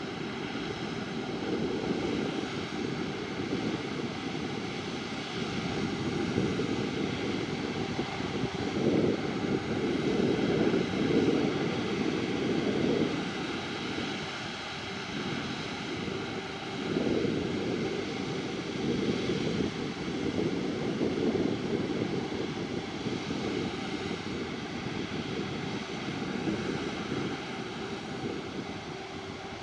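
Jet engines of an Airbus A330-300 airliner running, a heavy, deep noise that swells and fades in waves, loudest about a third of the way in, with faint steady whining tones above it.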